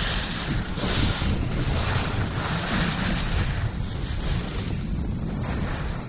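Wind buffeting the microphone of a camera moving fast down a ski slope: a loud, steady rumble with a hiss that swells and fades about once a second.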